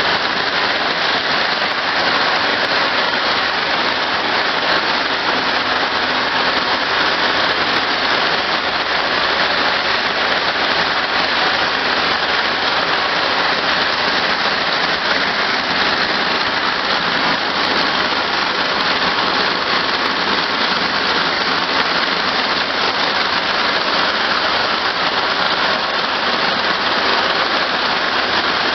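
32-carrier, two-head cord braiding machine running, its bobbin carriers circling the track with a steady, dense rattle.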